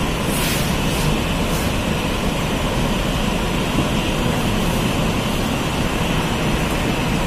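Steady rumble and hiss of air conditioning filling a large hall, with a few faint brief rustles in the first two seconds.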